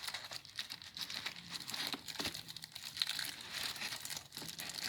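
Packaging crinkling and rustling in irregular bursts as a boxed item is unwrapped by hand.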